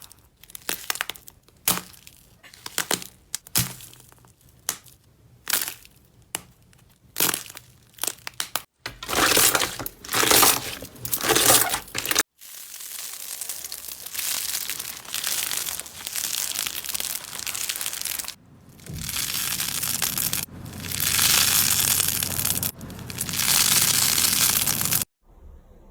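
Slime being squeezed and pressed by hand, making crackling, popping and crunching sounds: first a run of separate sharp pops and crackles, then denser, louder crunching, broken by abrupt cuts between clips about 12 and 18 seconds in.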